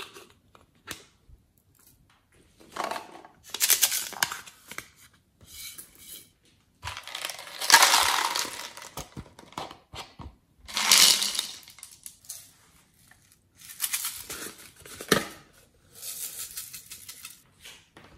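Glitter and plastic sequins rattling and pattering as they are shaken and poured from small plastic containers into a tray of slime. The pouring comes in about five short spells, with a few sharp plastic clicks between them.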